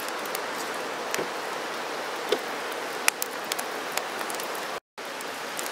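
Wood fire burning in a steel fire pit: a steady hiss with scattered sharp crackles and pops from the burning sticks. The sound drops out completely for a moment near the end.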